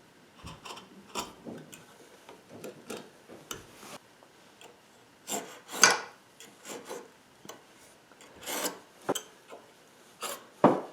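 X-Acto knife blade scoring a wooden board, drawn along the grain in a series of short, irregular scraping strokes, the loudest about halfway through.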